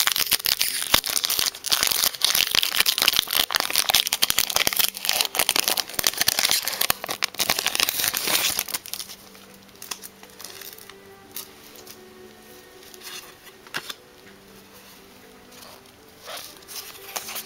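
Foil wrapper of a Pokémon TCG Chilling Reign booster pack crinkling and tearing as it is opened by hand, for about the first nine seconds. After that it is much quieter: faint background music and a few soft clicks of the cards being handled.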